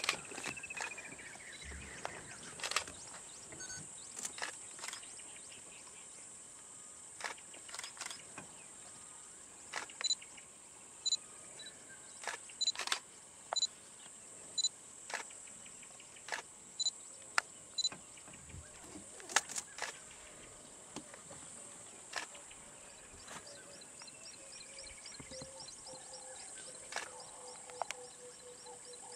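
Camera shutters clicking every second or two over open-bush ambience: a steady high drone and short whistled calls, with a falling whistle at the start and again about two-thirds of the way through.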